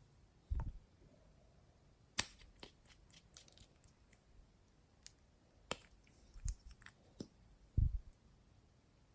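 Glossy slime being mixed: scattered sticky clicks and pops, with a few dull thuds.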